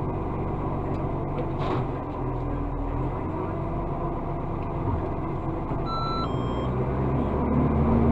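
Iveco garbage truck's diesel engine running under the cab while the side-loader's hydraulic arm is worked from the joystick. A short two-note electronic beep sounds about six seconds in, and the engine speeds up near the end.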